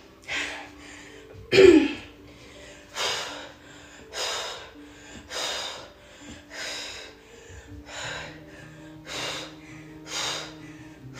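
A woman breathing hard from exertion, with sharp, forceful exhalations about once a second in a steady rhythm and a short voiced grunt near the start. Faint background music plays under it.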